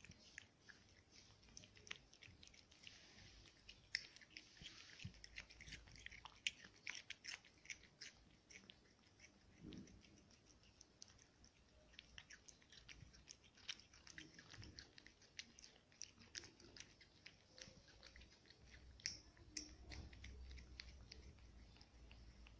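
A cat eating soft food from a plate: faint, quick, irregular chewing and lip-smacking clicks.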